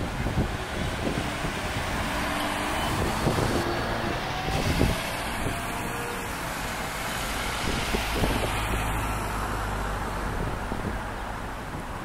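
Road traffic noise: a steady low engine rumble with road hiss from motor vehicles running nearby.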